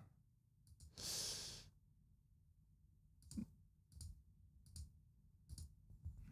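A single breath out about a second in, then about five quiet computer mouse clicks, roughly one a second.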